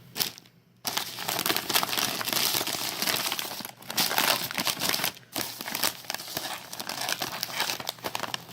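Snack wrappers crinkling as packaged snacks are handled and rummaged through, starting about a second in, with two short pauses.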